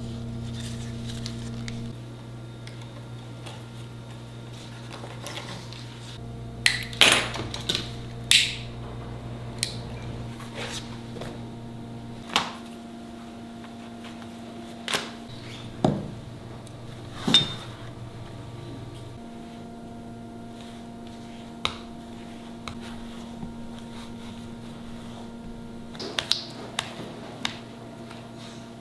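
Hand tools clicking and clinking as they are picked up and set down on a workbench, a few sharp knocks among them, over a steady low electrical hum.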